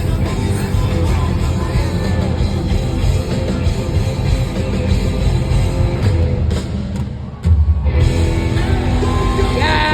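Live rock band playing loudly. The music thins out and drops in level for a moment about seven seconds in, then comes back with a heavy low hit.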